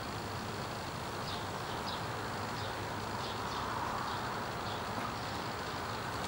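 Steady outdoor background noise, like distant road traffic, with a few faint short high chirps in the first half.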